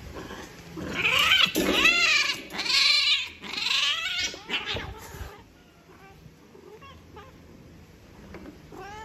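A female cat in heat yowling loudly during mating. It is a run of wavering, rising-and-falling cries lasting about four seconds that stops abruptly about five seconds in, the cry a queen typically gives at the end of copulation as the tom withdraws.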